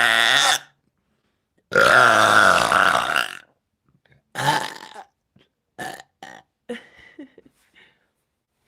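A woman burping loudly and on purpose after drinking Coca-Cola. A long burp ends about half a second in, a second long one lasts about a second and a half, and a shorter one follows, then a few brief sounds.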